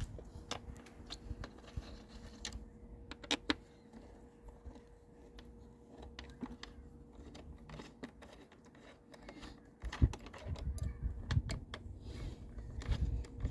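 Irregular small metallic clicks and taps of a hand tool working on a motorcycle's mirror mount to loosen the original mirror, with a sharper click or two now and then.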